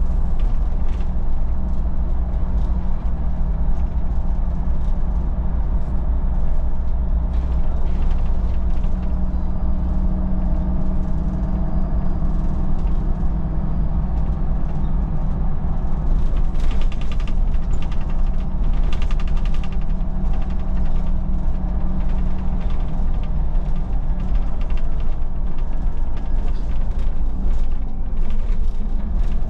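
Solaris Urbino 12 city bus under way, heard on board: a steady low drone from the engine and running gear, with the body and interior fittings creaking and rattling, most busily about halfway through.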